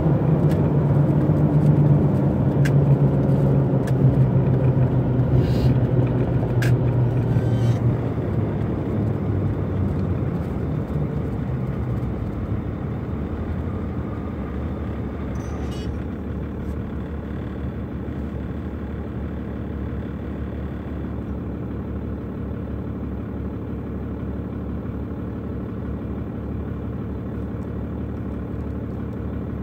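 12-valve Cummins inline-six diesel heard from inside the pickup's cab. Its engine note falls and quietens as the truck slows, then settles into a steady idle about halfway through.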